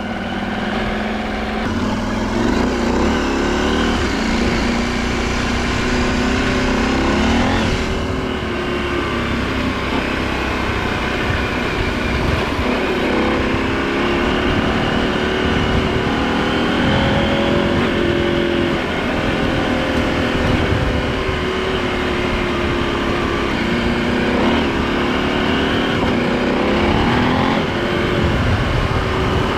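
Husqvarna Norden 901 Expedition's parallel-twin engine with the catalytic converter removed and the stock muffler kept, heard while riding. The engine note rises and falls as the throttle opens and closes, over steady wind and tyre noise on gravel.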